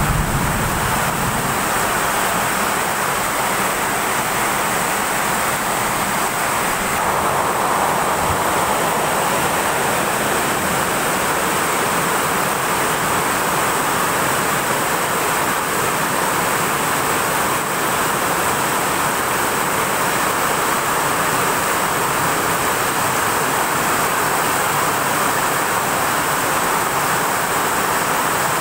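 Heavy rain pouring down steadily, a dense, even rushing noise with no breaks.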